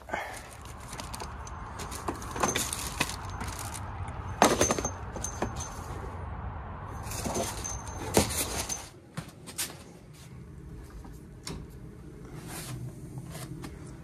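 Handling noise of metal hand tools: clinks, knocks and rattles as a wrench is picked out of a work van's tool area, mixed with footsteps. The knocking is busiest in the first nine seconds and thins to a few scattered clicks after that.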